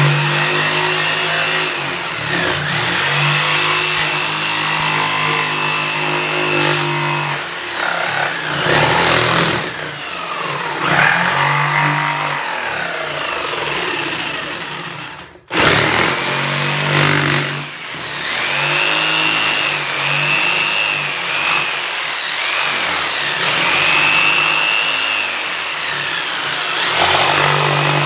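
Ryobi corded jigsaw cutting through plywood, the motor running loudly with its pitch rising and falling as the blade works. The sound drops out for an instant about halfway through.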